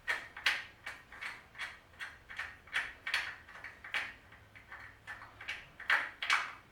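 A fastener on a Shopsmith being turned by hand with a hand tool: a short raspy click repeats about two to three times a second, a little louder near the end.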